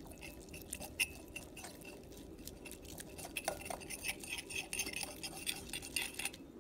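Metal wire whisk stirring slime in a glass bowl, its wires clicking and clinking against the glass in a quick, irregular run that gets busier about halfway through and stops just before the end.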